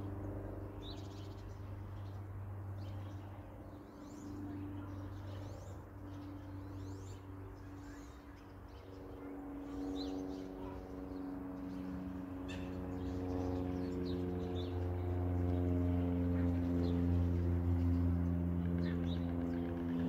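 Ambient music of long held low tones, layered like a chord, swelling in and growing louder through the second half, with the occasional change of chord. Small birds chirp faintly and sporadically over it.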